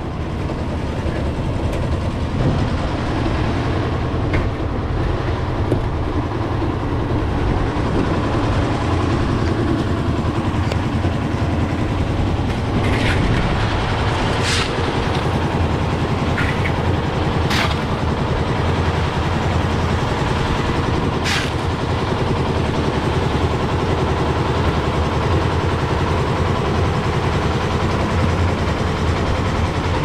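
Diesel engine of a concrete mixer running steadily, with a few sharp knocks in the middle.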